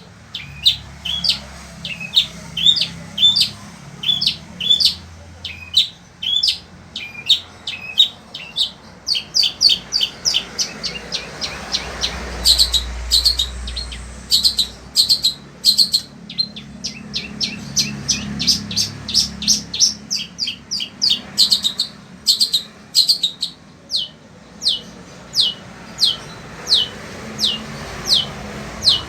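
Long-tailed shrike (cendet) singing without a break: a fast run of short, sharp, high notes, many sweeping downward, two or three a second.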